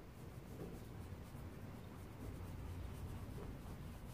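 Soft scratchy strokes of a paintbrush working oil paint across a canvas, spreading and blending the colours, over a low steady hum.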